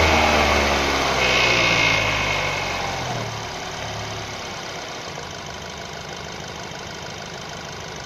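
2012 Nissan Tiida's HR16 1.6-litre four-cylinder engine coming down from a rev and settling to a steady idle over the first three seconds. It is running with the noise that was taken for the timing chain and that persists even with a new chain, tensioner, rails and sprocket fitted.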